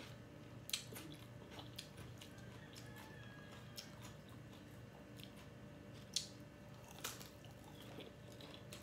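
A person chewing food, with a few scattered sharp crunches and clicks over a faint, steady low hum.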